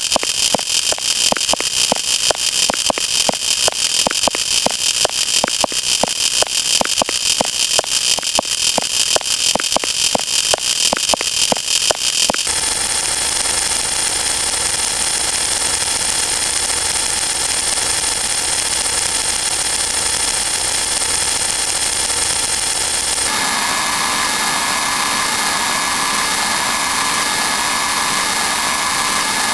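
Stock sound effects laid over a counter: a rapid, regular clicking rattle over noise, which switches about twelve seconds in to a steady machine-like hum with high whining tones, then changes again about twenty-three seconds in to another steady hum.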